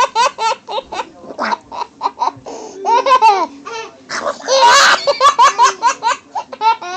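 Baby laughing hard in quick repeated bursts, with a breathier laugh a little past four seconds in.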